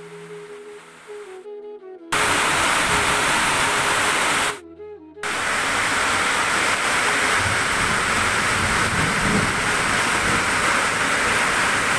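Soft background music for the first two seconds, then heavy rain pouring, loud and steady. The rain breaks off briefly about four and a half seconds in, letting the music through, then comes back just as strong.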